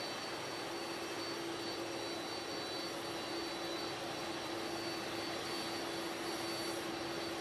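Air Force One's Boeing VC-25A, its four General Electric CF6 turbofans running at low power: a steady rushing noise with a constant high whine and a lower hum, unchanging throughout.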